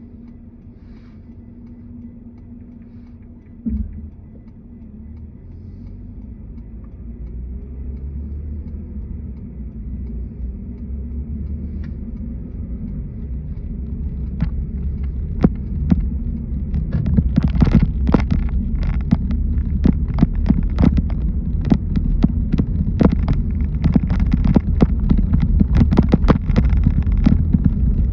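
Car driving, its low road rumble growing steadily louder, with a single thump about four seconds in and many sharp taps or knocks from about halfway on that come thicker toward the end.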